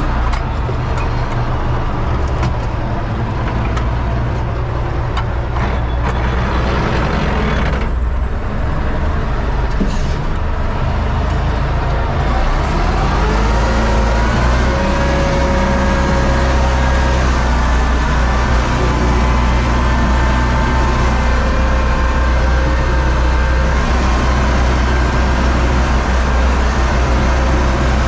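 Universal U650 tractor's four-cylinder diesel engine running steadily, heard from inside the cab. About 13 seconds in, its pitch rises and it then runs a little louder.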